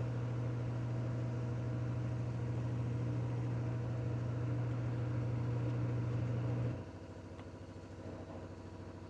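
Washing machine running its high-speed spin cycle, a steady mechanical hum with a strong low drone. About two-thirds of the way through, the drone cuts off suddenly and a much quieter hum remains.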